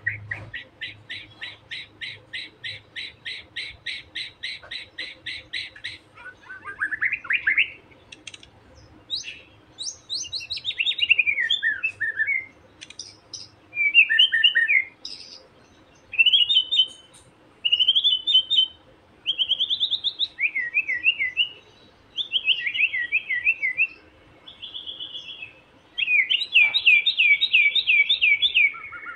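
Young wild white-rumped shama singing. It opens with a fast run of repeated notes, about five a second, for roughly six seconds, then breaks into short separate phrases of rising and falling notes with brief pauses, and ends with another rapid run. This is the shama's taunting song, meant to provoke a rival shama.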